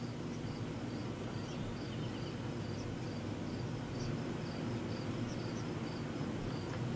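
Wren nestlings calling from inside a wooden nest box: a faint, high chirp repeated about three times a second, the young near fledging.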